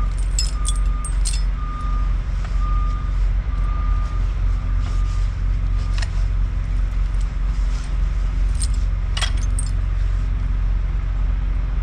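A few sharp metallic clinks of steel tire-chain links and the chain tool as a cross chain is worked loose, over a steady low rumble. A repeating beep runs alongside and stops about six seconds in.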